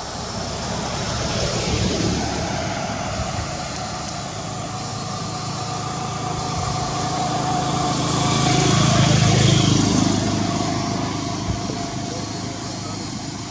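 Passing road traffic: a motor vehicle going by, its rumble swelling and fading. There is a smaller swell about two seconds in and the loudest pass around nine seconds in.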